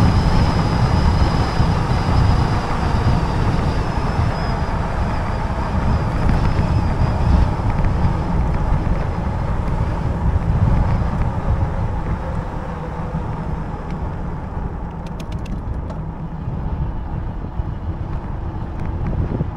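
Wind buffeting a bike-mounted camera's microphone while an e-bike rides steadily along a tarmac lane, with road noise from its fat tyres. It stays loud throughout, strongest in the low rumble.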